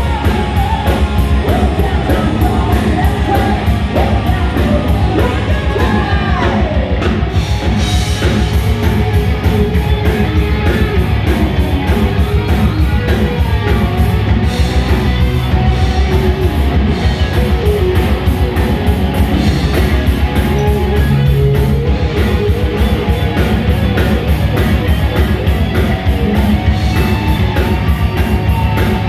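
Live heavy metal band playing loud and steady: electric guitars, bass and drums, with a singer's voice over them.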